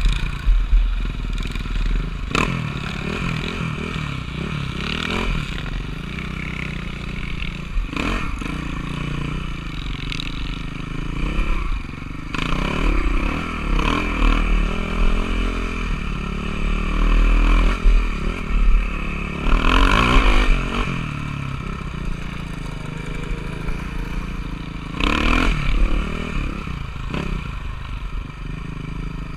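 Motocross dirt bike engine running, its pitch rising and falling as the throttle is opened and closed, with a heavy low rumble and several sharp clattering knocks.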